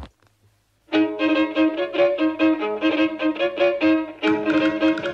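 Fiddle-led dance music strikes up about a second in, after a moment of quiet, playing a quick tune of rapid repeated notes.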